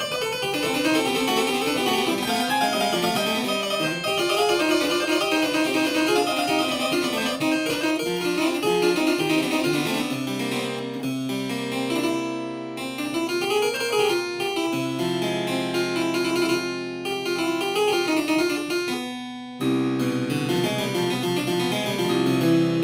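Harpsichord playing a busy piece of music, with plucked notes over a held bass line. It breaks off briefly about three-quarters of the way through, then carries on.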